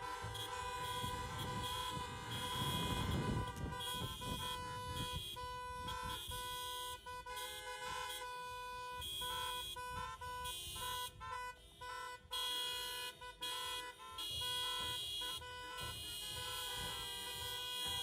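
Many car horns honking together, several at once and overlapping, some held long and others in short blasts that keep starting and stopping.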